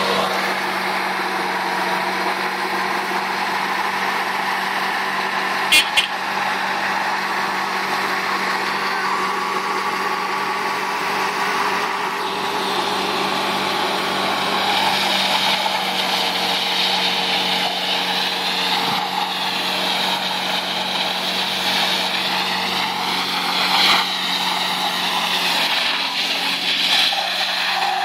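Geo Tracker's four-cylinder engine held at high revs through a burnout, spinning the rear tyres. Over the second half a wavering high-pitched tyre squeal rides on top. Two sharp clicks come about six seconds in.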